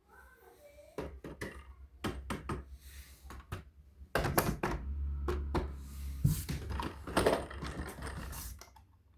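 Irregular knocks, clicks and scrapes of objects being handled at close range, with a low rumble of handling noise underneath.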